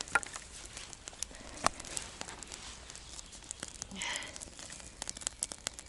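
Small, freshly lit campfire of dry twigs crackling, with scattered sharp pops and a brief rustle about four seconds in.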